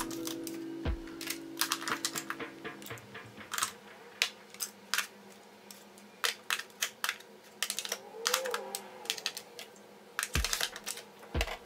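Plastic makeup tubes, compacts and bottles clicking and clattering as they are set down and shuffled into a plastic basket and an acrylic drawer organizer: a run of quick, irregular taps. Background music plays under it for the first few seconds.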